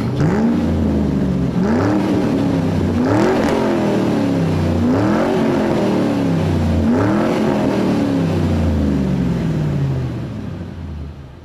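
A car engine revved about five times in a row, each rev rising quickly and falling away slowly, then dying down near the end.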